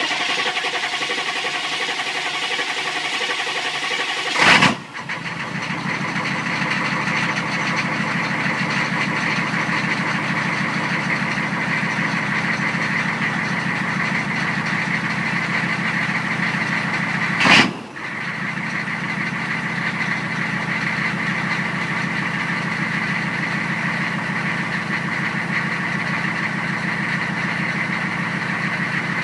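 1993 GM 6.5-litre diesel V8 running steadily just after a hard start, with a brief loud burst about four and a half seconds in and another about seventeen seconds in.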